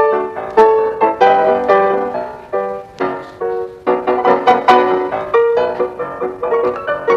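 Background music: a piano playing a lively melody of quick separate notes.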